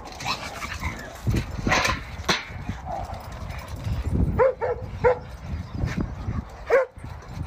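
A dog giving short barks that drop in pitch, three in quick succession about halfway through and one more near the end. Knocks and scuffling come before them.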